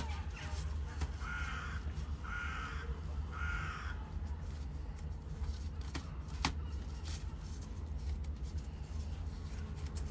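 A crow cawing three times, about a second apart, over a steady low rumble; a couple of sharp ticks follow later.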